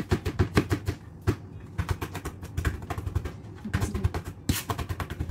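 A cleaver chopping rapidly on a plastic cutting board, mincing: quick, even knocks, several a second, broken by a couple of short pauses.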